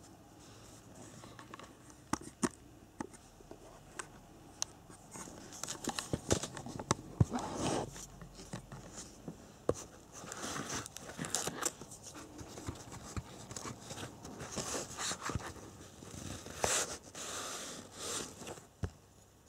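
A fabric tool bag being handled: the nylon case rustles in several bursts, with scattered sharp clicks from the metal drivers and fittings inside it.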